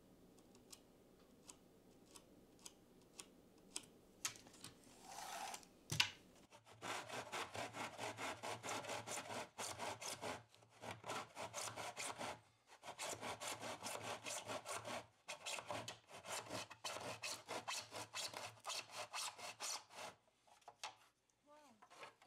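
Hand saw cutting through wood in quick back-and-forth strokes, in several runs with short pauses between them. A few light ticks and a sharp click come before the sawing starts, about six seconds in.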